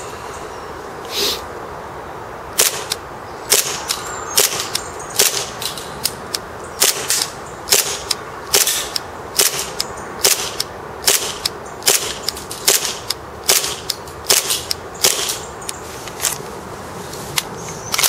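Plastic-framed Tokyo Marui 1911-type gas blowback airsoft pistol firing on propane from an extended 40-round magazine: about thirty sharp shots in steady semi-automatic succession, roughly two a second, with a short pause near the end. It keeps cycling consistently in the cold.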